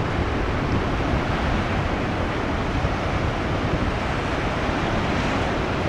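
Heavy post-typhoon surf breaking along a rocky coast: a steady rush of waves with no distinct single break, mixed with wind buffeting the microphone.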